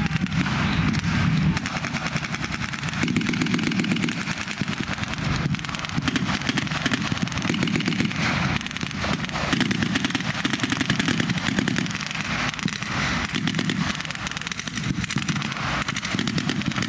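Sustained rapid fire from automatic weapons shooting blanks, many reports a second without a break, with the low running of tank engines underneath.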